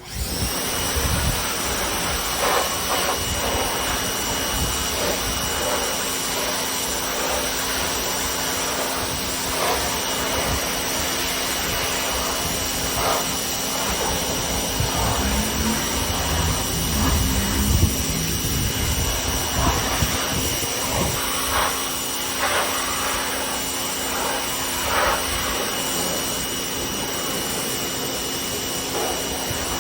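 Pressure washer running and spraying: a loud, steady hiss of the water jet with a constant high whine, starting abruptly and holding throughout, with small irregular spatters as the spray moves over the surface.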